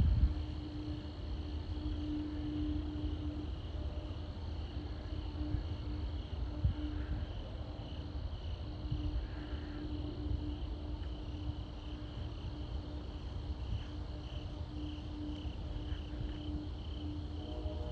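Crickets chirping in a steady, pulsing high trill, over a lower pulsing drone and the low rumble of wind buffeting the microphone.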